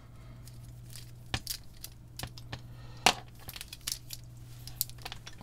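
Handling a coiled white mains test lead: scattered rustles and small clicks as the cable's plastic insulation is uncoiled and moved about, the sharpest click about three seconds in. A steady low hum runs beneath.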